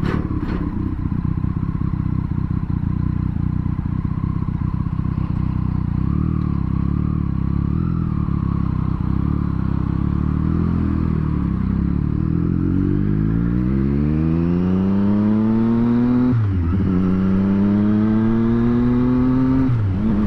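Triumph Street Triple 765R's three-cylinder engine, fitted with an aftermarket exhaust, heard from the bike while riding: low, steady revs at first, then the engine pulls up through the revs from about two-thirds in. There are two quick upshifts, each a brief dip in pitch before the revs climb again.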